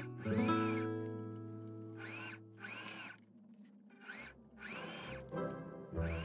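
Janome My Excel 18W sewing machine motor running in repeated short bursts, each whirring up in pitch and back down, as the needle stitches in short runs. Background guitar music plays underneath.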